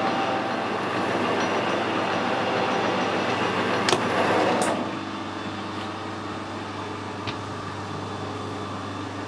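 Metal lathe running and turning a long, unsupported steel shaft with a high-speed-steel tool; the cutting noise drops about five seconds in, leaving the lathe running more quietly. Without the travelling steady the shaft is being pushed away from the tool, so it is not cutting to full depth.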